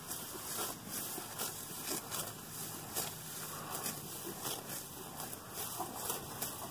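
Cow grazing tall grass: a series of short tearing sounds, about two a second, as it clamps the grass between its lower teeth and upper dental pad and jerks its head to tear it free.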